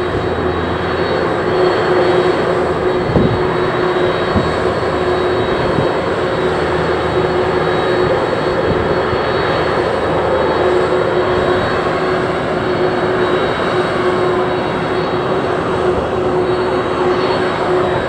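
Steady whine of a Boeing 767-300 jet airliner on the ground, with irregular wind rumble on the microphone.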